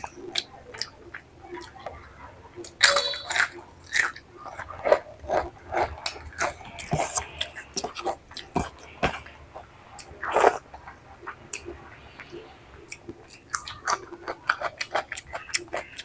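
Close-miked chewing and mouth smacking of a person eating rice with egg curry: many short wet clicks, with louder crunchy bites about three seconds in and about ten seconds in.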